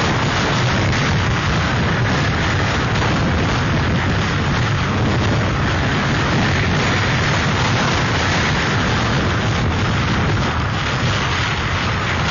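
Hurricane wind blowing loud and steady, buffeting the microphone.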